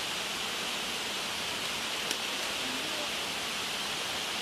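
Steady rush of shallow creek water running over rocks, with a faint click about two seconds in.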